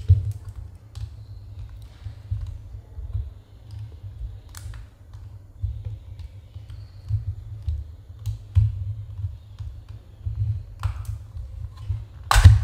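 Small screwdriver and fingers working a plastic security-camera housing: scattered light clicks and handling bumps while the side-cover screw is taken out, then a sharp plastic snap near the end as the side cover comes free.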